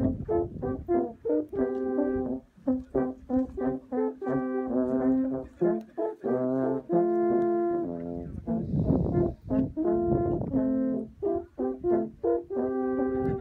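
Three alphorns played together, a tune of many short notes with a few longer held ones, the horns sounding several pitches at once in harmony.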